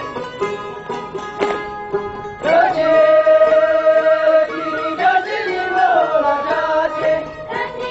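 Tibetan folk dance music: a plucked string instrument plays, and about two and a half seconds in a singer comes in with one long held note, then a bending phrase.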